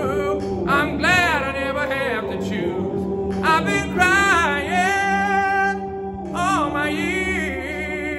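A man singing a cappella in a blues/soul style, long phrases with the voice sliding and wavering in pitch, over a steady low hum of held notes. The voice echoes in a concrete underpass tunnel.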